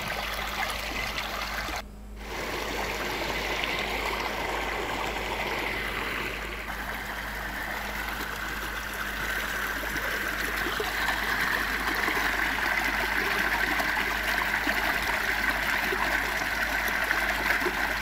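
Small waterfall pouring into a rocky stream: a steady rush of water, with a brief dip about two seconds in.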